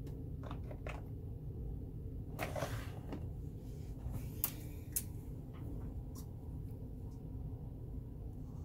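Steady low hum of room noise, with a few faint small clicks and a brief rustle of objects being handled on the table.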